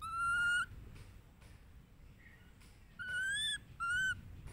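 Baby macaque giving high, thin whistle-like cries: one about half a second long at the start, then two shorter ones near the end, the first of those rising in pitch.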